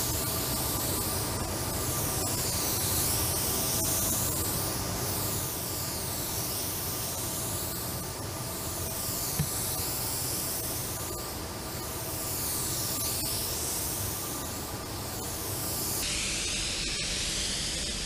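Pneumatic paint spray gun hissing steadily as it atomises paint onto a car body panel, the hiss sweeping up and down about every one and a half seconds as the gun passes back and forth.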